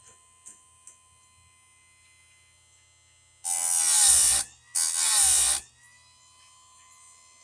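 Electric chainsaw-chain grinder's wheel grinding a chain tooth in two passes of about a second each, with a faint steady motor hum between them.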